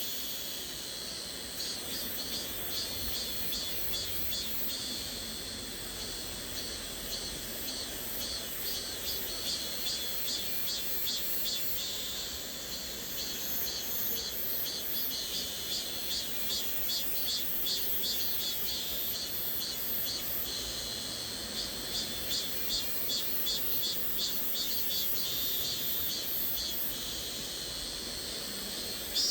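A chorus of cicadas buzzing, high-pitched and pulsing in quick, regular waves, over the soft, steady rush of a stream.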